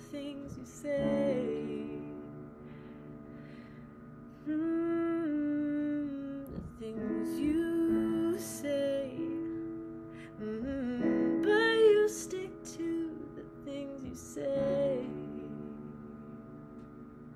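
A woman singing a slow ballad in long phrases with pauses between them, over a held instrumental accompaniment.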